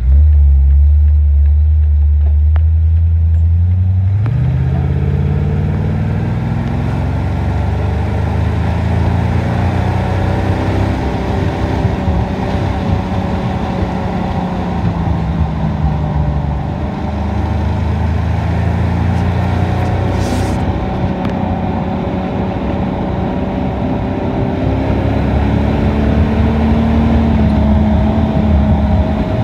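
1929 Ford Model A roadster truck's engine pulling away and driving: a strong low engine note at first, then rising about four seconds in. The engine pitch climbs and falls repeatedly as it accelerates and changes speed, over steady wind and road noise, with one brief click about twenty seconds in.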